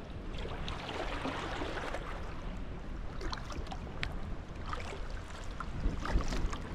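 Kayak paddle strokes: water splashing and dripping off the paddle blades in short irregular splashes, over a steady low wind rumble on the microphone.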